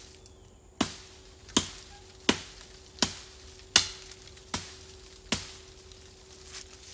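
Fiskars hatchet chopping through a flexible green stick: seven sharp chops, evenly spaced about three-quarters of a second apart.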